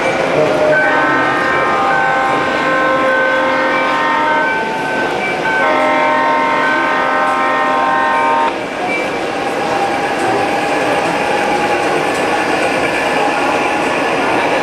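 Model train horn from a locomotive's sound unit, blowing two long multi-note blasts with a short break between them; the second stops abruptly about eight and a half seconds in. Under it runs a steady noise of model trains running on the layout.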